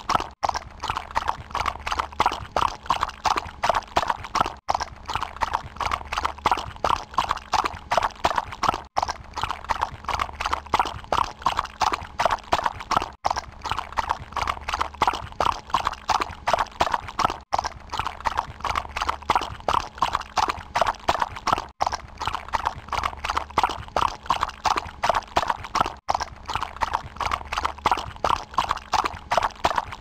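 Horse hoofbeats clip-clopping in a steady, quick rhythm, as of a horse being ridden. The sequence breaks off in a brief gap about every four seconds and then starts again.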